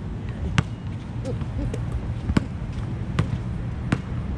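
Basketball bouncing on a court: a series of sharp, short bounces about one a second, over a steady low rumble.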